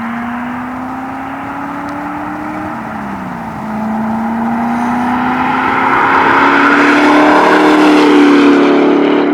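Corvette V8 with an X-pipe and non-stock exhaust accelerating hard: the engine note climbs, drops at an upshift about three seconds in, then climbs again, growing louder.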